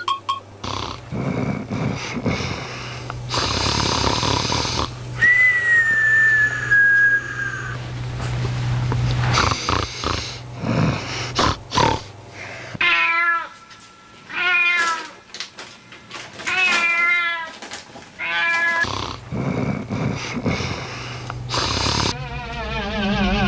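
Domestic cats vocalising, with a run of short, wavering calls in the second half. A low steady hum runs under the first third.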